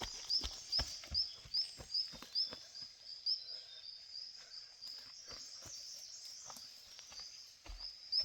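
Footsteps walking at an even pace, with a high, short chirp repeating about two and a half times a second in step with them. The steps fade about three seconds in and come back near the end, while the chirping goes on throughout.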